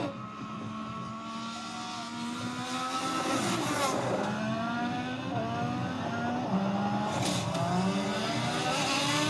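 Motorcycle engine accelerating hard, its pitch climbing again and again and dropping back at each upshift through the gears.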